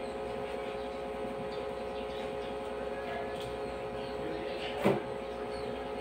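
Steady machine hum with several held tones, and one sharp knock about five seconds in.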